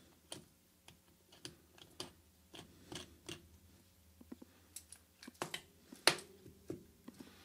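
Irregular small clicks and scrapes of a watch's screw-down caseback being turned loose with a caseback remover tool, the loudest click a little after six seconds in.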